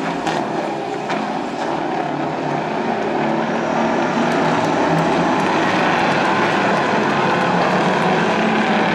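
Diesel engines of several racing semi trucks running together in a steady drone, growing a little louder a few seconds in.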